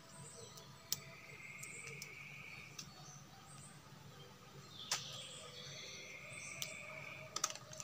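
Quiet forest ambience with two long, steady, high-pitched calls of about two seconds each, over faint background noise. A few sharp clicks and rustles come from hands working among the branches as fruit is picked, the last of them in a quick cluster near the end.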